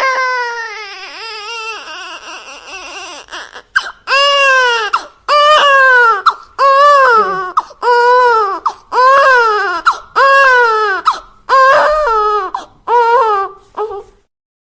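Baby crying hard: a long cry trails off unsteadily, then about four seconds in it breaks into a run of loud wails, about one a second, each rising and falling in pitch, the last few shorter and choppier.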